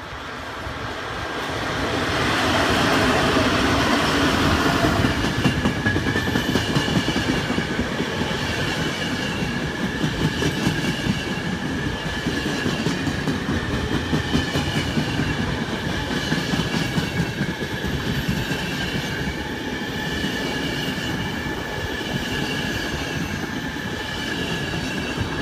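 A double-headed train of FS E.656 'Caimano' electric locomotives passes close by, loudest about two to five seconds in. A long string of passenger and couchette coaches follows, rolling past with a continuous rhythmic clickety-clack of wheels over the rail joints and a steady high wheel squeal.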